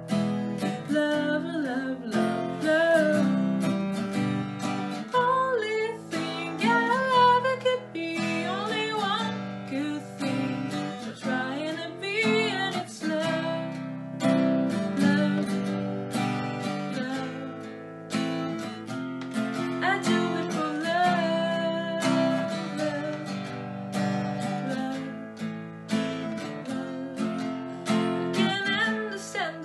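Steel-string acoustic guitar strummed in a continuous chord pattern, an instrumental passage between sung verses.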